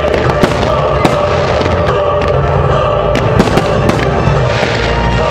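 Fireworks going off in a rapid series of sharp bangs and crackles over continuous loud music.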